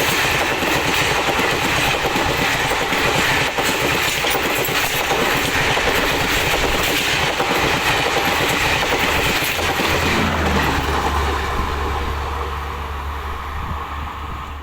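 Passenger train's coaches running past at speed, wheels clattering over rail joints, fading over the last couple of seconds.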